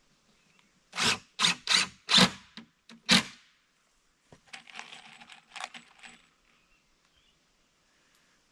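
Five or six sharp clattering knocks within about two seconds, then a cordless drill running unevenly for about two seconds.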